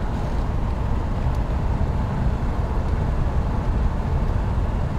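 Steady low rumble of a 40-series Toyota LandCruiser Troopy driving at road speed, heard from inside the cab: engine, tyre and wind noise.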